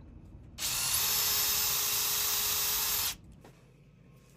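Bosch cordless drill boring a half-inch hole into a wood block, running steadily at full speed for about two and a half seconds with a faint whine, then stopping abruptly.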